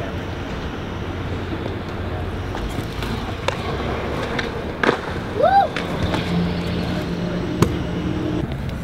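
Kick scooter wheels rolling on a concrete skate bowl, a steady grinding rumble, with a couple of sharp clacks of the scooter against the concrete about five and seven and a half seconds in.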